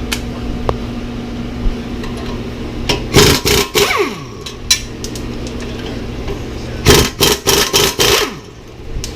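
Air ratchet with a 3/4 socket running in two bursts, about three and seven seconds in, undoing the big bolts that hold a coilover strut to its knuckle, with a falling whine as the tool spins down after the first burst. A steady hum runs underneath.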